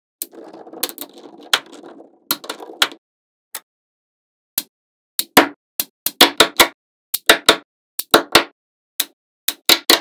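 Small magnetic balls clicking sharply as they snap together one by one, with the clicks coming thicker in the second half. In the first few seconds there is also a rattling as balls roll and jostle against each other.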